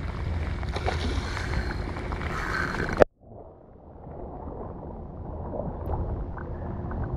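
Wind buffeting the microphone with rain and choppy water, a steady rumbling hiss. About three seconds in a single sharp knock, after which the sound cuts out almost completely and comes back as a duller, muffled hiss that slowly grows louder.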